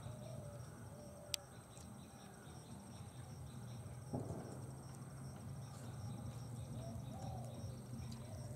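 Rural outdoor ambience: insects drone steadily at a high pitch, with a few short bird calls. There is a sharp click about a second in and a soft knock around four seconds.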